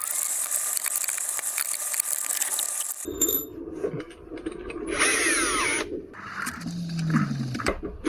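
Cordless power screwdriver running in several bursts, driving the screws tight on the electric unicycle's motor and side covers; in one burst the motor pitch falls as the screw seats.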